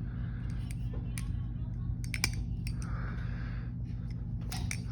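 A Desert Warrior live-blade balisong (butterfly knife) being flipped: irregular light clicks and taps as the handles swing and knock together, over a steady low hum.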